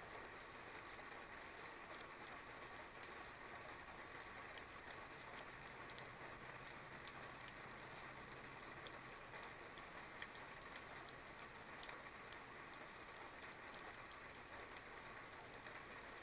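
Light rain falling: a steady, quiet hiss scattered with faint drip ticks. A faint low hum comes in for a few seconds midway.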